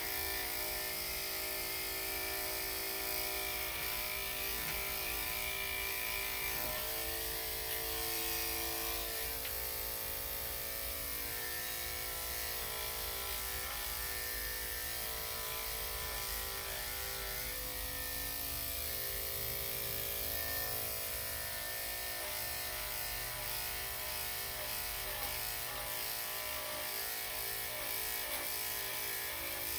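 Electric dog grooming clippers fitted with a #5 blade, running with a steady buzz while clipping a Shih-Tzu's coat.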